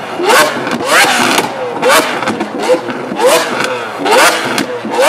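Lamborghini Aventador V12 being revved hard while parked: short blips in quick succession, about one a second, each rising sharply in pitch and then falling back.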